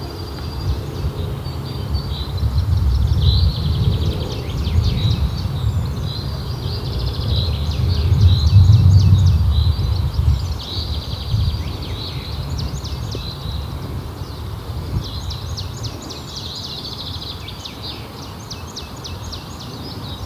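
Songbirds singing, with short chirps and quick trills repeating every second or two, over a loud, uneven low rumble that swells around the middle.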